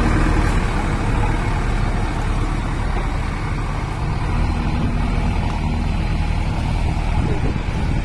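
Diesel engine of a JCB 3DX backhoe loader running steadily, a loud continuous low hum.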